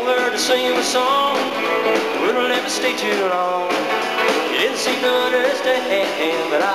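A country band playing live, with an electric guitar line to the fore and notes sliding upward again and again.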